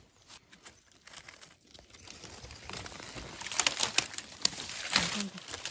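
Dry fallen leaves crackling and rustling as a person moves through leaf litter and pushes plants aside. It is faint at first, with sharp, irregular crackles from about three seconds in.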